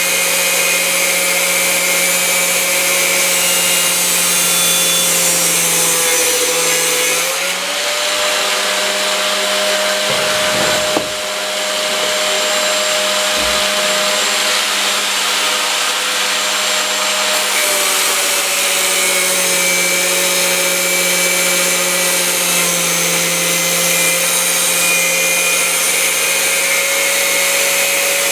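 125 mm angle grinder in a chop stand running continuously, its motor whine sagging slightly in pitch at times as the disc cuts chrome-plated pipe. One short knock near the middle.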